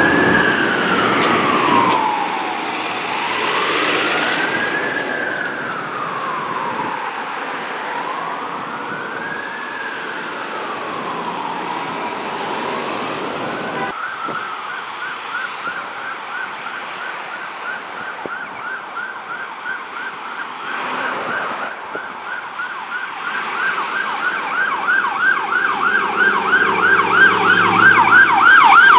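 Emergency vehicle's electronic siren in a slow wail, rising and falling about every four to five seconds. About halfway through it switches to a fast yelp, which grows louder toward the end.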